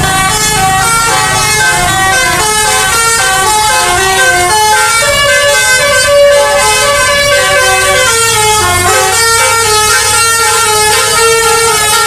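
Tour bus's musical 'telolet' horn playing a tune: a run of loud horn notes stepping up and down in pitch, a few notes a second, without a break.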